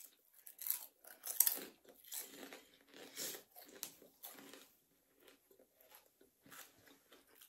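Crunching and chewing of a fried crab rangoon's crisp wonton wrapper: irregular crisp crunches, the loudest about a second and a half in.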